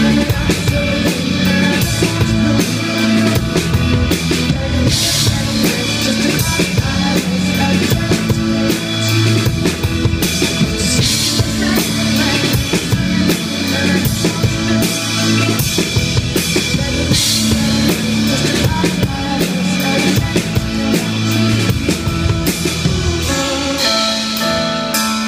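Live pop band playing an instrumental passage between vocal lines: a drum kit keeps a steady beat with bass drum and snare, under keyboard chords and a violin.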